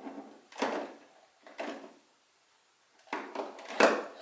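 Handling noise of a digital multimeter and its test leads being moved about at a mower's battery: short knocks and rustles in three bursts, the last and loudest about three seconds in.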